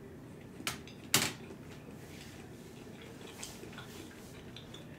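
Close-miked eating of stir-fry noodles with a plastic fork: two sharp clicks about a second in, then faint chewing and mouth sounds.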